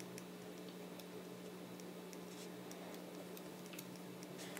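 Faint, scattered small clicks and ticks from hands handling things on a desk close to the microphone, over a steady low electrical hum.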